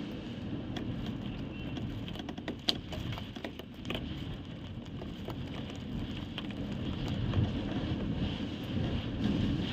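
Storm wind gusting and buffeting the microphone with a deep rumble, with a cluster of sharp ticks between about two and four seconds in.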